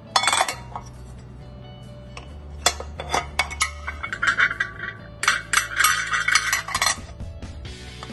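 Removable waffle-maker plate unclipped, lifted out and handled: sharp clicks and clinks, turning into a dense rattling clatter between about four and seven seconds in, over background music.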